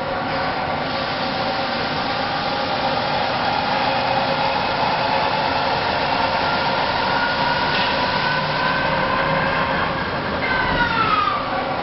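CNC lathe running as a carbide insert bores a spinning Teflon (PTFE) tube: a steady machine hum with a whine that rises slowly in pitch, then drops away about ten and a half seconds in.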